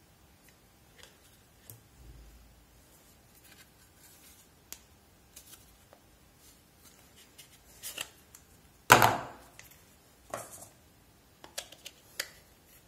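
Hard plastic parts of a 3-in-1 facial steam vaporiser being handled and fitted together: scattered light clicks and rubbing, with one louder plastic knock about nine seconds in and a few sharper clicks near the end.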